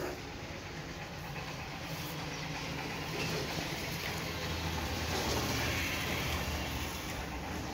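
A steady low rumble of background noise, growing a little louder around the middle.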